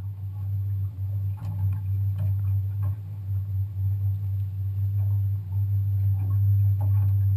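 Suzuki outboard motor idling with a steady low hum, plus a few faint clicks.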